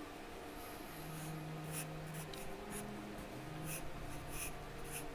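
Charcoal pencil scratching on drawing paper in a series of short, quick strokes as the drawing is shaded.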